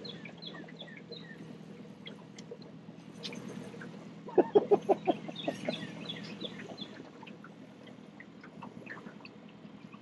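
Birds chirping, with a run of about eight quick, loud quacks from a duck about four and a half seconds in. A low steady hum runs underneath.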